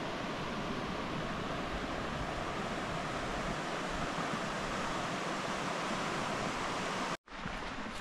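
Steady rush of a mountain river's flowing water, cutting off abruptly near the end.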